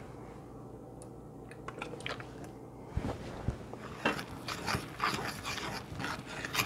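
A fork stirring buttermilk into flour and grated cold butter in a stoneware bowl for biscuit dough: quick scraping, crunching strokes, two or three a second, starting about three seconds in.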